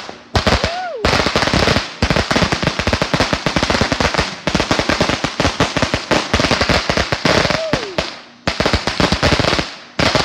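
A string of firecrackers going off: a rapid, dense crackle of pops in several runs, broken by short pauses.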